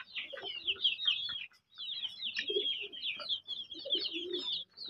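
A flock of young chickens peeping: many short, high, falling calls overlapping one another, with a brief lull about a second and a half in and some lower calls mixed in later.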